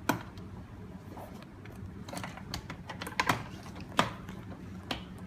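Irregular small clicks and knocks of hard plastic and metal parts being handled and pressed into place: a smart door lock's back panel being positioned on the door. The sharpest knocks come just after the start, a little after three seconds and at about four seconds.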